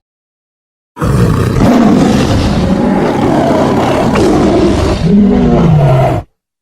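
Tiger roaring: one long, rough roar that starts about a second in, with a falling note near the end, and cuts off abruptly.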